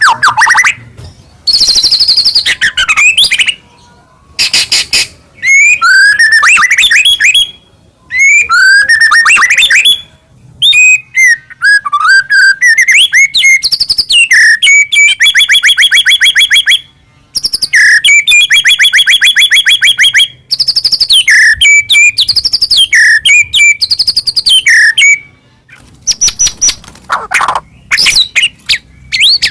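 White-rumped shama (murai batu) singing loudly in phrases a few seconds long, separated by short pauses: whistled notes that glide up and down, alternating with long runs of very rapid repeated notes.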